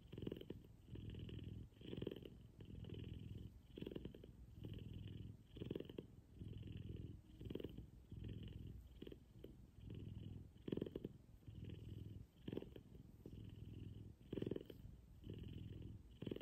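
F2 Savannah cat purring steadily, a low rumble that swells and eases with each breath, in waves about a second apart.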